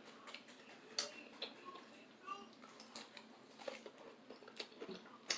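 Faint mouth sounds from a person eating or drinking: scattered small wet clicks and smacks, a few of them sharp.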